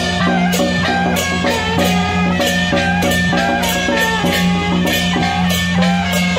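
Taiwanese temple-procession band music: a stepping, sliding melody over a steady low drone, with hand cymbals and a large gong struck about two to three times a second.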